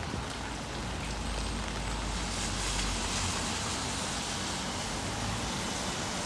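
Car tyres hissing on a rain-soaked road as a car drives past, swelling about two seconds in, over a steady wash of rain and traffic noise.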